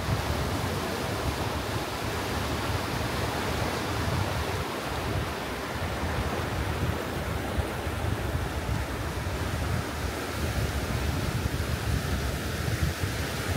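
Choppy sea waves breaking and washing over a low rock shelf in a steady rush, with gusty wind buffeting the microphone in a low rumble.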